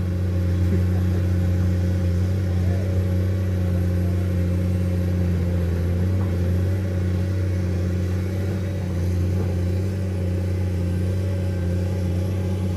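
Komatsu PC210 excavator's diesel engine running steadily as the machine wades through deep floodwater: a constant low drone.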